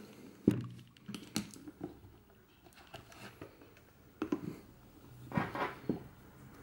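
Handling a leather camera case with a metal clasp: a sharp click about half a second in, then a scatter of small clicks, knocks and leather rubbing as the case is opened and the camera is lifted out.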